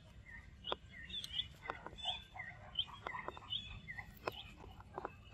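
Faint, short, high chirping calls repeating about every half second, with a few sharp clicks between them, over a low background rumble.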